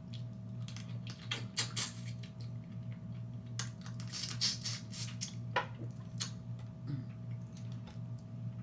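Close-up mouth sounds of eating seafood: wet lip smacking and chewing in irregular clusters of short clicks, over a steady low hum.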